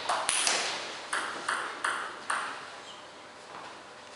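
Table tennis ball clicking sharply on the table and bats, about seven pings in the first two and a half seconds, each ringing on briefly in a reverberant hall, then dying away.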